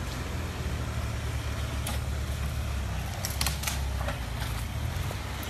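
Compact hydraulic excavator's diesel engine running, a steady low rumble, as it clears felled trees and brush. A few sharp knocks come about two seconds in and again around three and a half to four seconds.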